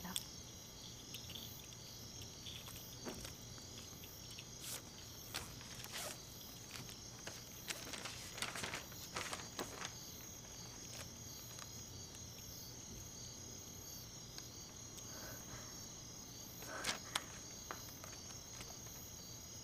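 Crickets chirping steadily as a night ambience, with a few soft rustles and clicks now and then.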